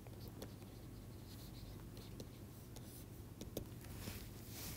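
Faint taps and scratches of a stylus handwriting on a tablet, with a steady low hum underneath.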